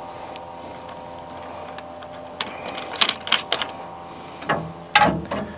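Cordless drill/driver running steadily on a bolt of an awning's mounting bracket, a motor whine for about two seconds, followed by several sharp clicks and knocks of metal hardware.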